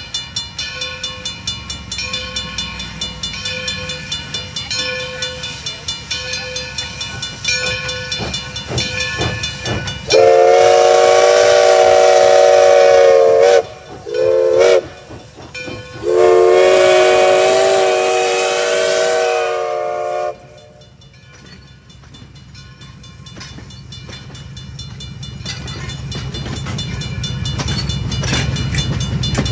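Steam locomotive working with a steady exhaust beat and a ringing that repeats about once a second. Its whistle, several tones sounding together, then blows a long blast, a short toot and another long blast. After the whistle, a low rumble grows louder as the train comes closer.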